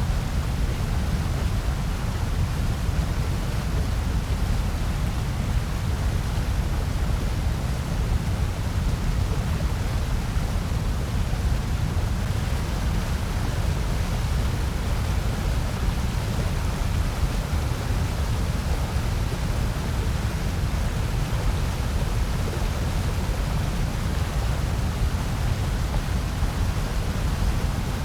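Steady, unchanging noise of the kind sold as white noise, heaviest in the low end with a softer hiss above, with no breaks or events.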